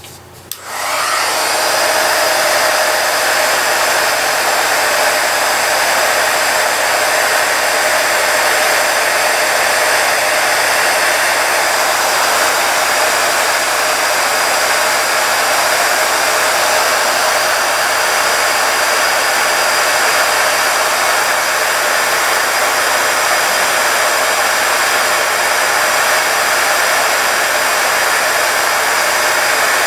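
Craft embossing heat gun switched on about half a second in, building up over a second or so, then blowing steadily as it heats the glue to soften it.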